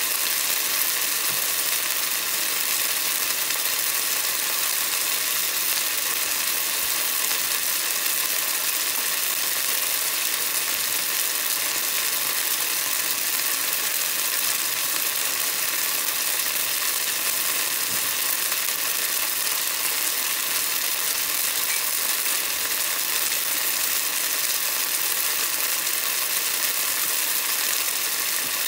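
Eggplant pieces deep-frying in a small pot of hot oil: a steady, dense crackling sizzle as the moisture in the eggplant boils off into the oil.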